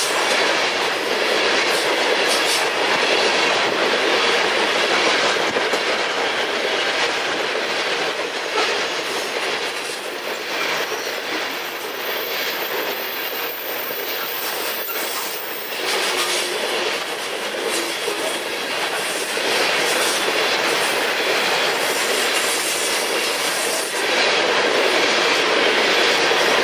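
Freight train of loaded-style coal hopper cars rolling past at close range: a steady rolling rumble of steel wheels on rail, broken by repeated clacks as the wheel sets pass.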